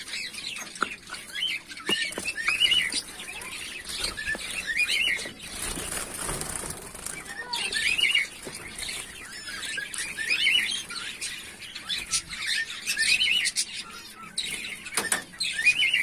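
Caged finches chirping over and over in short, high calls, with wings fluttering. There are a few sharp knocks as the wire cage and wooden nest box are handled.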